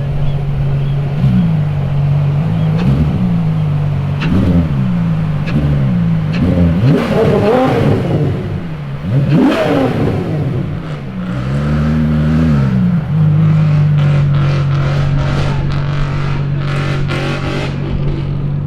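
Ferrari F12 Berlinetta's 6.3-litre V12 idling and being blipped over and over: four quick revs that rise and drop straight back, two bigger revs around the middle, then a longer held rev. After that it settles back to a steady idle.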